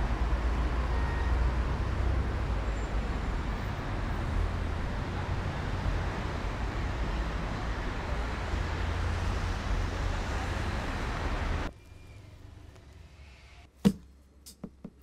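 Steady roadside traffic noise with a low rumble, cutting off suddenly about twelve seconds in. A quieter indoor background follows, with one sharp knock and a few light clicks near the end.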